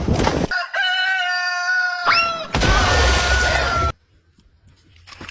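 A cat yowling in one long, steady, drawn-out cry, with a loud noisy burst over it from about half way through that cuts off abruptly near the end.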